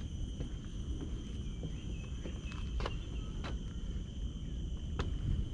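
Insects chirring in a steady, thin high tone, with scattered light ticks and a constant low rumble underneath.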